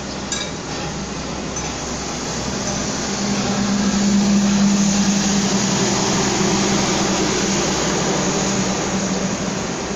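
Argo Parahyangan passenger train passing through the station: a steady rumble of wheels on rails with a low hum, swelling about three to six seconds in and then easing.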